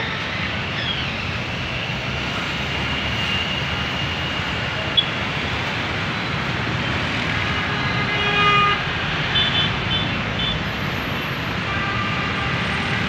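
Busy road traffic: a steady mix of truck, car, bus and motorcycle engines and tyres, with vehicle horns honking now and then, a longer horn about eight seconds in followed by a few short high beeps.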